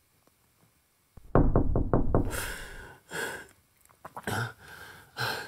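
A quick series of loud knocks on a door about a second in, then a man's shaky sniffs and breaths as he tries to stop crying.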